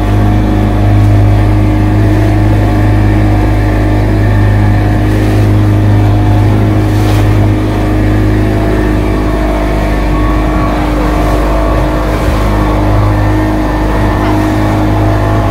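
Motorboat's engine running steadily under way, a constant low hum with a steady drone above it.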